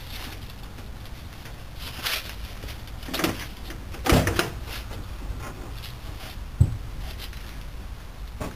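Steel car door of an old stripped-out derby car being unlatched and swung open, with several metal clunks and knocks. The loudest comes about four seconds in, and a sharp thump follows near seven seconds.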